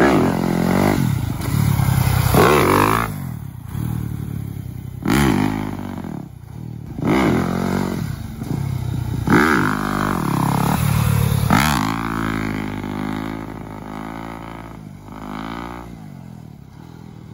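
Four-stroke dirt bike engine, a Yamaha YZ250F, revving hard and easing off over and over while wheelieing, the note climbing and falling about every two seconds. Near the end it runs steadier and fades as the bike rides away.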